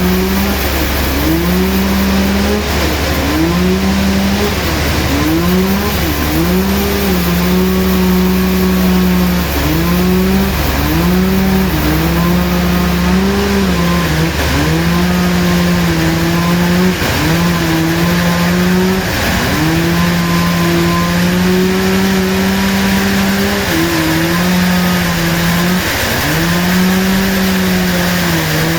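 Sawmill running, its motor holding a steady pitch that sags briefly and recovers every second or two as the saw takes load in the wood, over a hiss of cutting.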